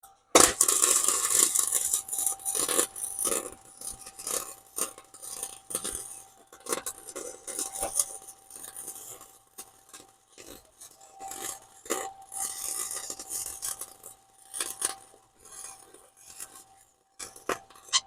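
Welding arc crackling and spitting as a bead is laid on a steel motor mount bracket, in uneven runs with a couple of short breaks, loudest in the first two seconds.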